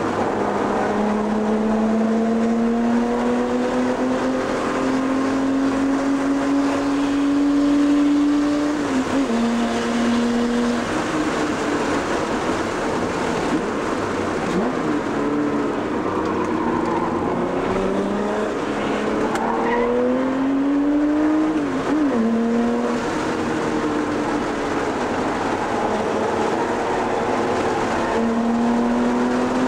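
A car engine heard from inside the cabin on a track lap, pulling hard with its pitch climbing through long accelerations. The pitch drops back at gear changes or lifts about 9 and 22 seconds in, then climbs again near the end, over steady road and wind noise.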